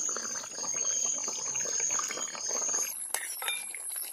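Fish curry bubbling at a simmer in a large metal pot over a wood fire, with coconut oil being poured over it. A few light clicks about three seconds in, as a spoon goes into the pot.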